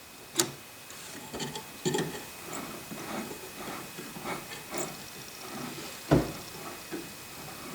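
Handling noises on a 1956 NordMende Fidelio tube radio as its tuning is checked: faint rubbing and light clicks over a low hiss, with one sharper knock about six seconds in.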